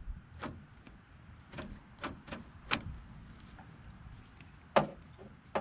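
Scattered sharp clicks and knocks of parts being handled inside an open car door, several in the first three seconds and one louder knock near the end.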